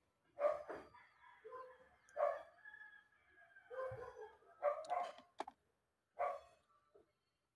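A dog barking about six times in short yips at irregular intervals.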